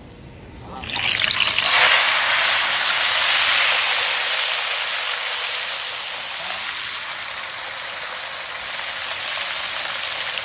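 Whole seasoned fish going into hot oil in a frying pan. About a second in, a loud sizzle breaks out and carries on as steady, vigorous deep frying, easing slightly after its peak.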